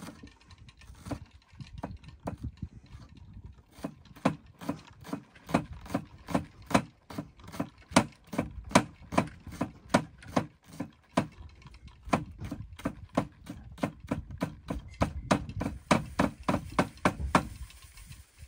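Small Bowie knife chopping onion thinly on a cutting board: a steady run of sharp cuts against the board, about three a second, with a couple of brief pauses.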